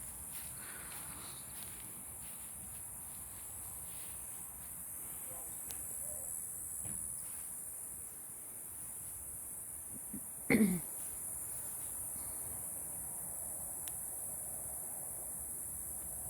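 Crickets chirping in a steady high-pitched chorus. About two-thirds of the way through comes one short vocal sound from a person, falling in pitch.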